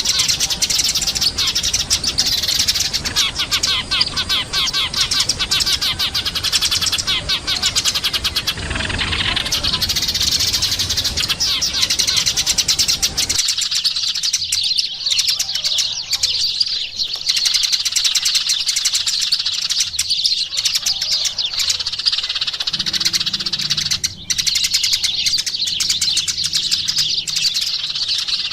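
Eurasian tree sparrows chirping: a dense, continuous run of short, high chirps. A low background rumble drops out suddenly about halfway through.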